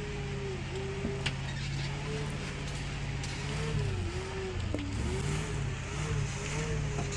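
Heavy truck engine running under load, its pitch dipping and recovering several times as the revs change.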